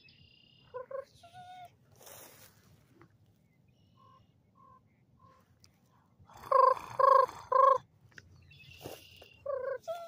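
A person blowing into cupped hands to make a bird-like hooting call: three loud, steady hoots about half a second apart, some six and a half seconds in.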